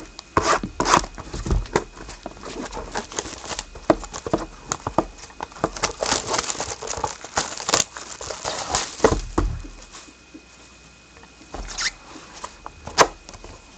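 Packaging of a sealed trading-card box being torn, rustled and crinkled open by hand, with the card pack inside being handled: irregular clicks and rustles, busiest in the middle and thinning out near the end.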